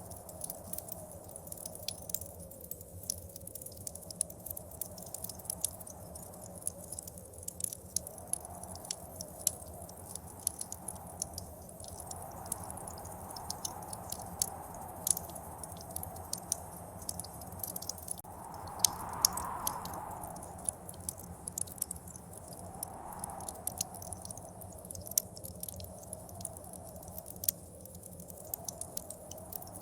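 Wood fire crackling with frequent sharp pops, over blizzard wind that rises and falls and swells to its strongest gust a little past the middle.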